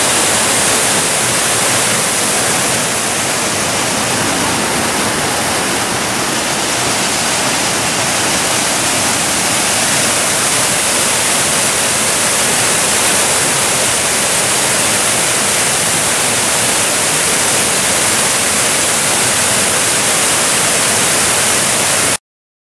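Large fountain's cascades and high jets of water, a loud, steady rush of falling and splashing water that cuts off suddenly near the end.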